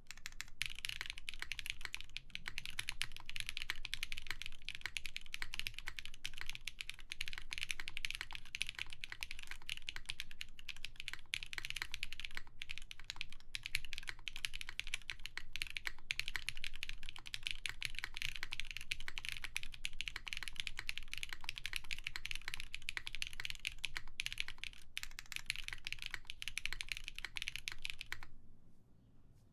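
Fast, continuous typing on a gok Venn mechanical keyboard with a full polycarbonate plate, GMK Sandstorm keycaps and Zakus switches lubed with 205g0. The keystrokes run as a dense stream of clicks and stop just before the end.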